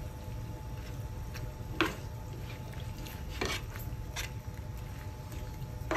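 Soft squishy rustles and a few light clicks as rice cakes and fish cakes are moved about by hand in a frying pan, over a steady low hum.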